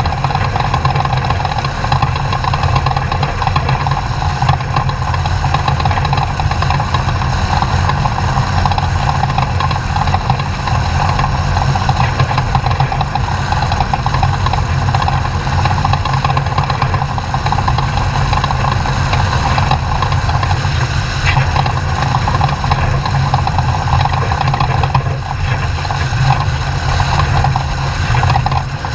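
Off-road race truck engine running at a steady pitch, with no revving up or down.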